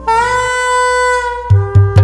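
Soprano saxophone holding one long note, scooping up slightly into it, over a samba backing track. About one and a half seconds in, heavy bass and percussion hits from the backing track come in.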